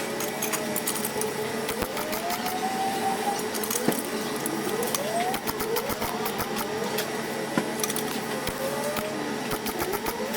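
Workshop noise: irregular light clicks and taps over a steady hum, with several short rising tones.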